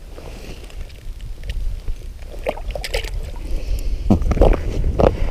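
Low rumble of wind buffeting the microphone, with scattered clicks and knocks that grow busier from about halfway through.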